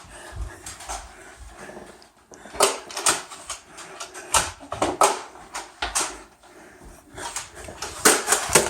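An irregular run of sharp clacks and knocks, starting a couple of seconds in: toy foam-dart blasters being primed and fired, with darts striking.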